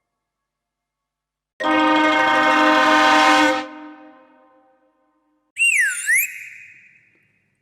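Two cartoon sound effects: a steady, horn-like blast of about two seconds that fades away, then, about three and a half seconds later, a short whistle that swoops down in pitch and back up.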